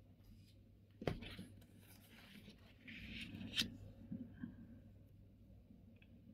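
Quiet handling of a paper scratch card on a wooden table: a sharp tap about a second in, then a brief papery slide ending in another tap around three and a half seconds in, as a fresh card is laid down and positioned.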